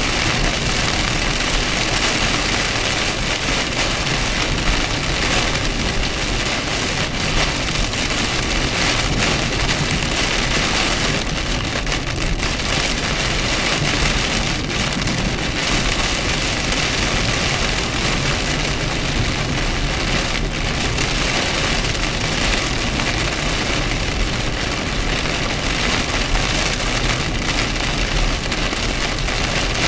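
Heavy rain beating steadily on a moving car's windshield and roof, heard from inside the cabin, over the low hum of the engine and tyres.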